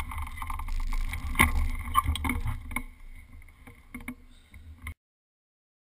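Wind and road rumble on a bike-mounted GoPro HD Hero as a Commencal mountain bike rolls over pavement, with a few sharp knocks and rattles from the bike about one and a half and two seconds in. The rumble fades, and the sound cuts off suddenly near five seconds in.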